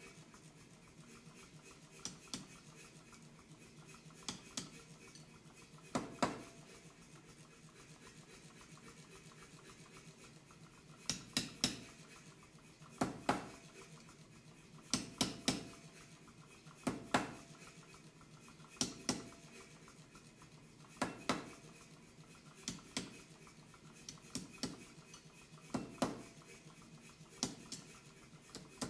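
Power hammer blows on a hand-held top tool set on red-hot steel over the lower die. Short, sharp metallic strikes come singly or in quick twos and threes, with gaps of one to a few seconds between them.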